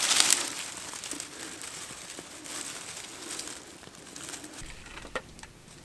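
Campfire tinder bundle flaring up as it catches, a sudden rush of noise at the start, then dry twigs and leaves crackling as they burn and are fed onto the new flames, with a few sharp pops about five seconds in.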